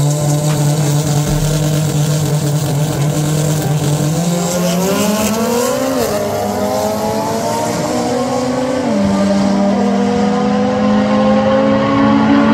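Drag-race cars, a Mark 5 Toyota Supra among them, launching off the line at full throttle. The engines hold a steady note for about four seconds, then climb in pitch through the gears, the pitch dropping at each upshift about six and nine seconds in.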